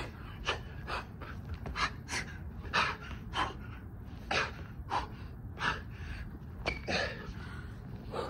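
A man breathing hard from the exertion of burpees: about a dozen short, sharp gasping breaths, roughly one every half second to a second.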